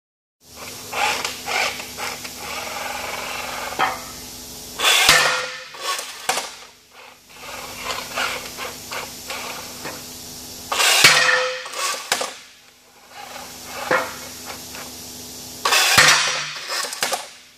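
Featherweight combat robot firing its axe three times, about 5, 11 and 16 seconds in, each firing a sudden loud strike followed by about a second of hiss. Between the firings come smaller clicks and rattles from the robot moving on the floor, over a steady low hum.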